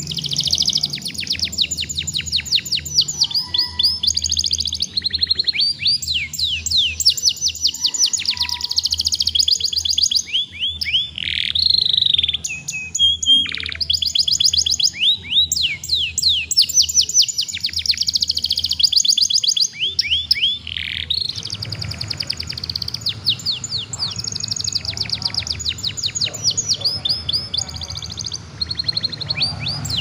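Young domestic canary singing a long, fast song of rapid trills made of high downward-sweeping notes, with a short break about a third of the way through. A steady low hum runs underneath.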